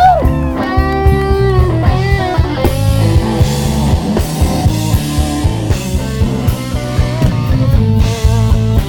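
Live blues band playing: a solid-body electric guitar plays lead lines with bent notes over a steady drum kit beat.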